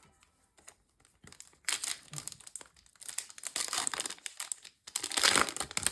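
Foil trading-card booster pack wrapper crinkling as it is handled and torn open, in irregular crackly bursts that grow loudest near the end.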